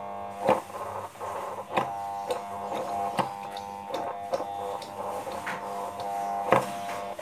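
Electric motor of a high-pressure washer humming steadily on mains power without starting up, with scattered sharp knocks. This humming is the fault being repaired; the start capacitor and a dry, stiff pump are the suspects.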